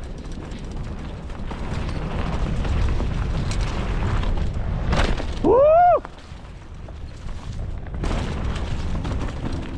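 Mountain bike running down a rough dirt trail at speed: wind buffeting the onboard microphone over the rumble and rattle of tyres and bike, with scattered clicks. About halfway through comes a short, loud tone that rises and falls.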